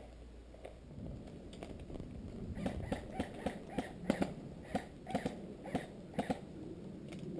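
Footsteps crunching on dry leaves and twigs on a forest trail, about a dozen steps at a walking pace, two to three a second, starting a little over two seconds in.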